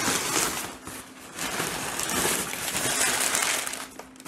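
Crumpled newspaper packing rustling and crinkling in a cardboard box as hands dig through it, with a short lull about a second in.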